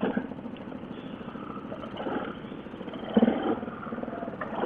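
Yamaha ATV single-cylinder engines running at low speed as the quads pull away along a dirt trail, with the engine note swelling briefly about 2 and 3 seconds in.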